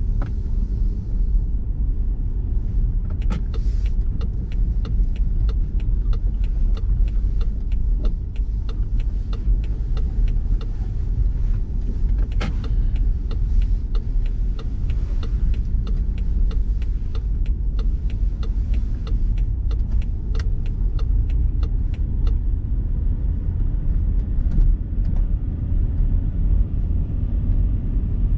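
BMW X3 driving through snow: a steady low rumble of the running car and its tyres, with many sharp ticks and clicks from about three seconds in until a few seconds before the end.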